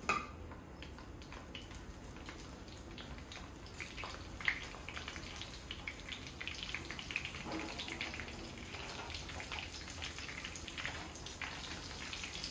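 Breadcrumb-coated chicken noodle cutlets shallow-frying in oil at medium heat in a frying pan: a steady sizzle with many small crackles and pops, growing busier after about four seconds as more cutlets are laid in.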